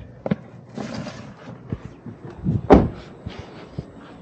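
Handling noises: a click, a short rustle, then a louder thump about two and a half seconds in.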